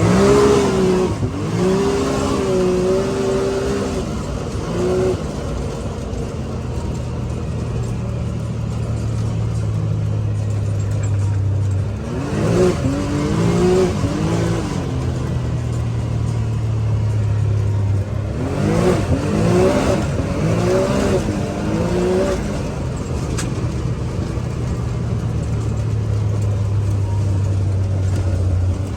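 Can-Am Maverick X3 Max side-by-side's engine driving along: it runs steadily, then revs up and falls back in three spells, near the start, around the middle and again a little later.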